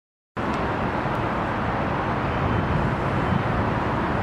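Steady, dense background noise with no clear rhythm, cutting in abruptly a moment in as the recording starts.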